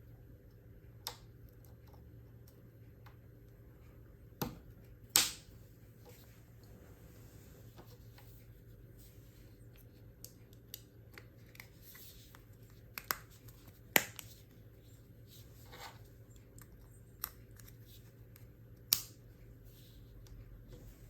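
Plastic clicks and snaps from a car key fob's casing being handled and pressed together, about seven sharp clicks scattered among fainter ticks, over a steady low hum.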